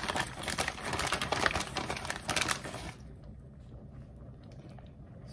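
Plastic bag of shredded mozzarella cheese crinkling as it is handled and opened, a dense run of crisp crackles that stops about three seconds in.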